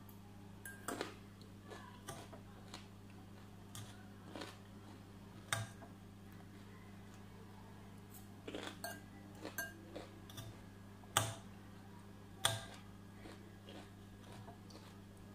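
Metal fork clinking and scraping against a glass bowl in scattered taps, the sharpest a little past the middle and twice near the end, over a steady low hum.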